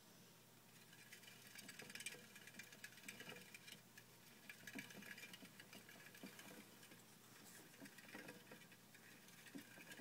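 Teddy bear hamster running in a plastic exercise wheel: a faint, rapid, uneven patter of small feet and wheel clicks, starting about a second in.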